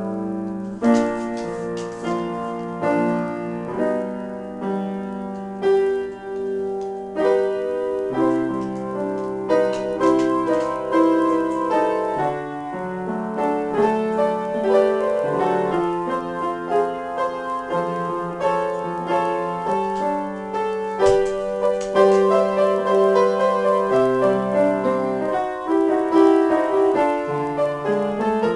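Solo piano playing an improvised piece: a continuous flow of held chords, with bass notes changing every second or two beneath a melody in the middle register.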